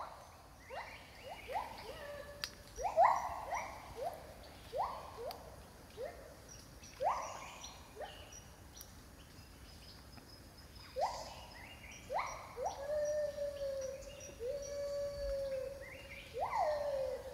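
White-handed gibbons giving their Great Call, a territorial song. It is a run of whooping notes that each sweep sharply upward. About two-thirds of the way in, several long, steady, wavering hoots join in. A faint rapid high ticking runs underneath.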